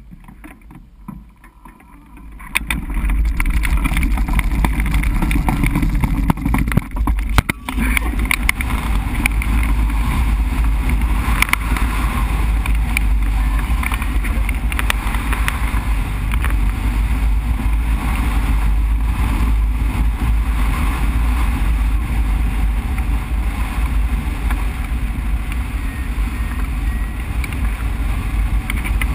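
Wind rushing and buffeting over the microphone of a camera mounted on a hang glider during an aerotow launch. It starts abruptly about two and a half seconds in as the tow gets under way, then holds loud and steady through the climb.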